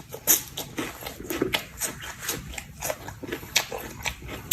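A person chewing crisp food close to the microphone: a run of irregular sharp crunches and mouth sounds.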